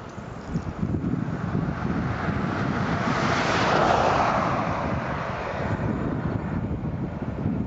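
Engine noise of something passing at a distance, swelling to a peak about four seconds in and then fading, over low wind rumble on the microphone.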